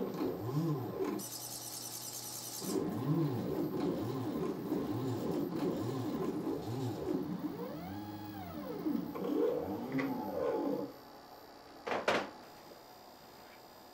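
Stepper motors of a 3D-printed robot arm whining in rising and falling sweeps as the joints speed up and slow down through each move, with a brief high buzz about a second in. The motors fall quiet near the end, and a short sharp knock follows.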